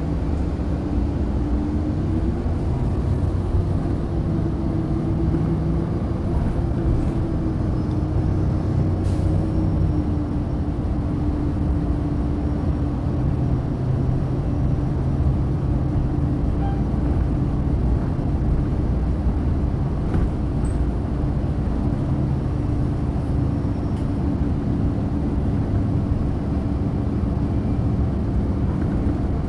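Orion VII NG hybrid-electric bus standing at idle: the steady low hum of its Cummins ISB diesel, with a steady whine over it that rises slightly at the start and then holds.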